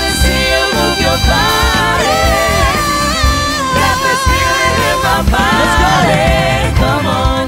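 Upbeat band music with a steady bass-heavy beat and a singer holding long, sliding notes.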